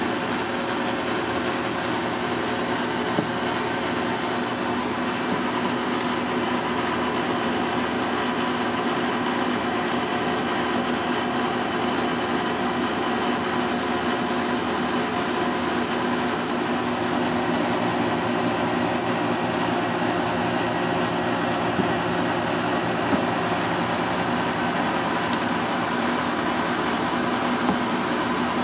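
A steady mechanical hum and whir, like running ventilation machinery, with several held tones. It is broken only by a few faint clicks.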